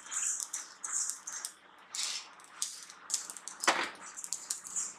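Sesame and poppy seeds dry-roasting in an iron kadhai, the sesame seeds popping with irregular sharp crackles while a spatula stirs and scrapes them, with one louder stroke about three-quarters through. The popping is the sign that the sesame is well roasted.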